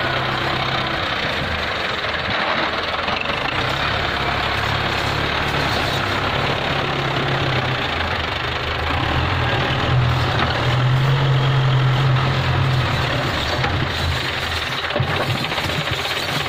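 Belarus 510 tractor's diesel engine working hard under load as the tractor climbs a dirt slope, a steady low running that grows louder for a few seconds past the middle.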